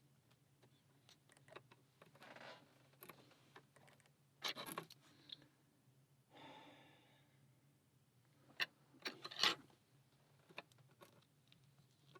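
Small metal clicks and scrapes of a tool working at the retaining C-clip on the back of a Schlage lock cylinder, with a few sharp clicks close together about nine seconds in.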